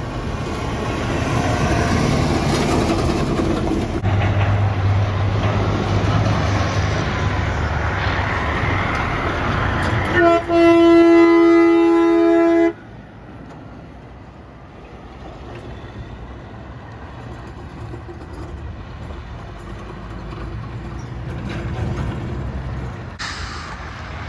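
Diesel truck engine running as a semi truck passes close, then a truck air horn sounds about ten seconds in: a short toot followed by a steady blast of several tones sounding together, held for about two and a half seconds and cut off suddenly. Quieter traffic rumble follows.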